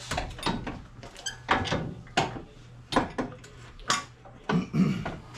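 A series of sharp clanks and knocks, about seven in a few seconds, from tools and metal suspension parts being handled; one brief metallic ring about a second in.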